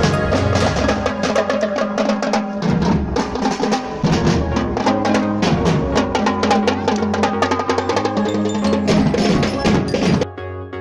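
A marching drum-and-lyre band playing: snare and bass drums beating a fast marching rhythm with bell lyres ringing over it. Near the end the drumming cuts off suddenly and only a soft keyboard tune is left.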